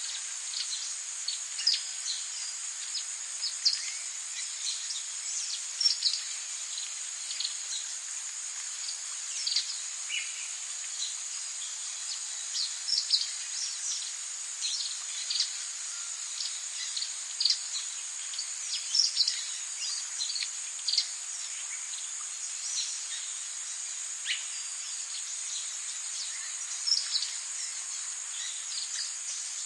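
Forest ambience: a steady high insect drone, like crickets, with many short bird chirps scattered throughout.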